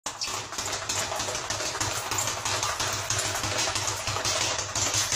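Rapid, irregular punches landing on a hanging heavy bag, over a steady low hum.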